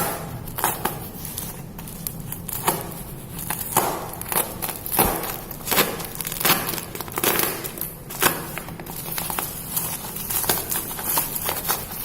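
A parcel's wrapping being opened by hand: irregular crinkling, rustling and tearing with small clicks and scrapes.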